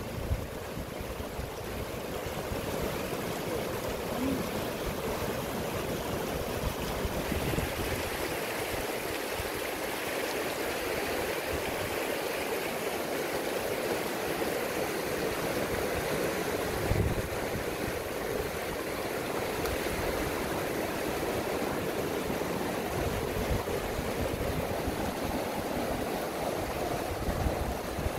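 Steady rush of white water over the boulders of a fast, rocky mountain river. A brief low thump comes about two-thirds of the way through.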